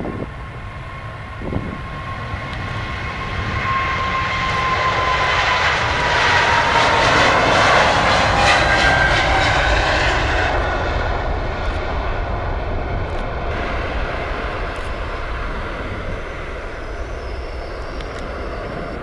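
Boeing 777's twin jet engines at takeoff power as it rolls down the runway, lifts off and climbs away. The noise builds to its loudest about eight seconds in, with a whining tone that falls in pitch as the jet passes, then slowly fades.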